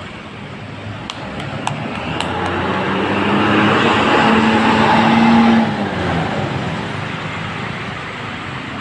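A bus drives past close by. Its engine and tyre noise builds to a peak about five seconds in, then fades away. A few sharp clicks sound early on.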